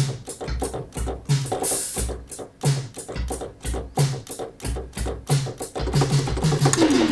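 Prototype analog synthesizer in drum-kit mode playing a steady electronic drum beat of synthesized kick, snare and hi-hat. Near the end comes a run of pitched tom hits that fall in pitch.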